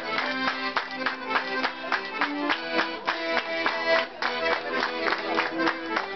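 Lively Circassian folk dance music: an accordion melody over a fast, steady percussive beat.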